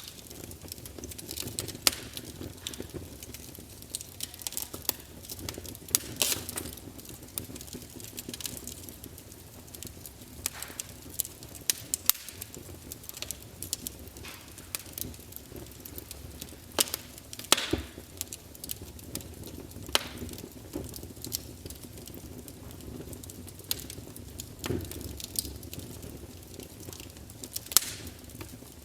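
Campfire burning with a steady low rumble and frequent irregular crackles and sharp pops of the burning wood.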